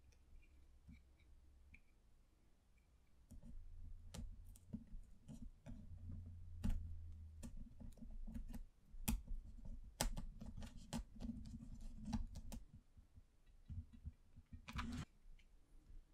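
Fingers handling and pressing small wooden popsicle-stick shingles on a model roof: irregular light clicks and taps, dense from about three seconds in, with a short cluster of clicks near the end.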